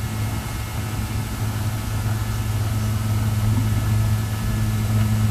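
A steady low hum over a constant background hiss, growing slowly a little louder.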